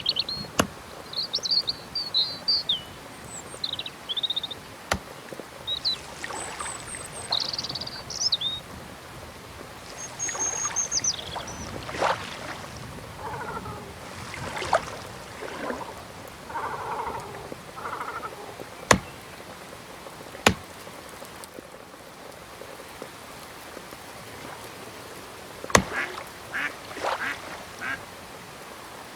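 Ducks quacking in short runs, mostly in the middle and near the end, with small birds chirping high at the start and a few sharp, isolated clicks.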